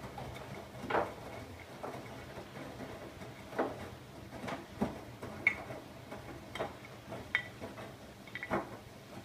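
Siemens iQ700 washing machine running its Rapid 20 wash programme. A low steady hum runs under irregular short knocks and clicks, about one a second.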